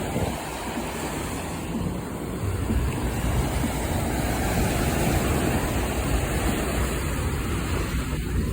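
Atlantic Ocean surf washing onto the beach, swelling midway through, with wind buffeting the microphone.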